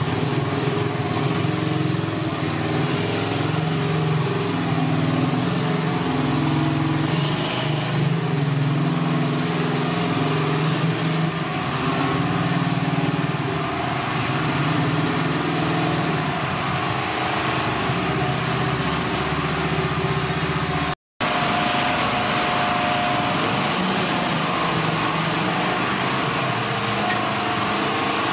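125 cc quad bike engine running, its pitch shifting up and down. The sound cuts out for a moment about two-thirds of the way through.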